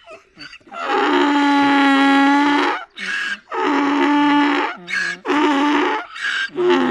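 Donkey braying in a crying-sounding cry: long held notes of about two seconds each, alternating with short, lower, gasping notes.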